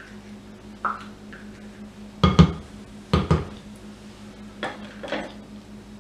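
A small metal measuring cup and a spoon clinking and knocking against each other and the glass mixing bowl as sour cream is scraped out. Two sharp pairs of knocks come a little over two seconds and about three seconds in, with lighter clinks before and after.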